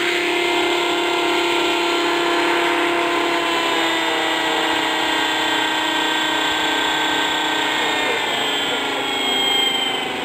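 Radio-controlled model helicopter's drive and rotor running with a steady, loud whine, its pitch sinking slowly over the second half as the helicopter settles onto its wheels.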